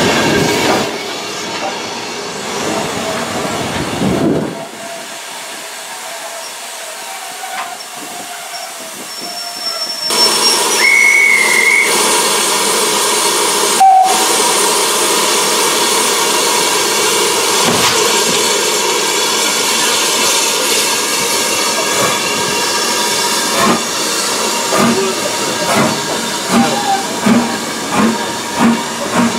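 BR Standard Class 4 4-6-0 steam locomotive No. 75078 working a train: coaches rolling past at first, then a loud steady hiss of steam from about a third of the way in, a short single-note whistle soon after, and regular exhaust chuffs about one and a half a second near the end.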